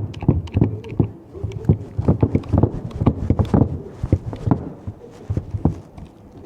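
A quick series of hard knocks and clicks, about four or five a second, from a crimping tool being worked to crimp a copper lug onto a 16 mm² cable.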